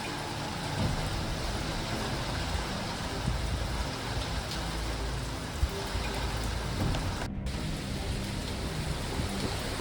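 Hurricane rain falling steadily, with wind gusts buffeting the microphone in low rumbles. The sound cuts out for a split second about seven seconds in.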